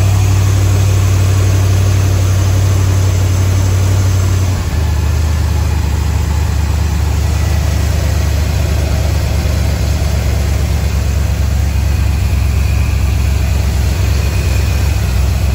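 The 1967 Corvette's carbureted small-block V8 idling steadily, freshly running after decades in storage. About four and a half seconds in, the idle drops a little and settles.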